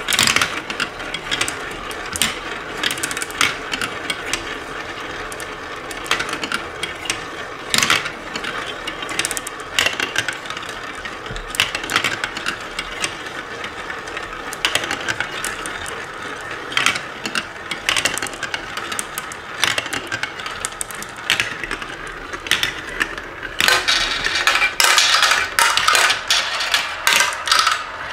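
Marbles rolling around plastic funnels and through plastic tubes of a marble run: a steady rolling rattle with frequent sharp clicks as the marbles knock together and drop onto the track. The clicks come thick and fast for the last few seconds.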